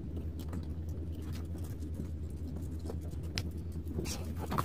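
Light clicks and scrapes of a metal bracket being handled and fitted against a massage chair's frame during assembly, with one sharper click about three and a half seconds in, over a steady low hum.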